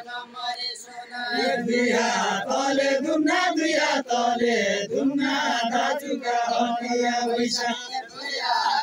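A group of men singing a Deuda folk song together, in long held notes that break and start again line by line.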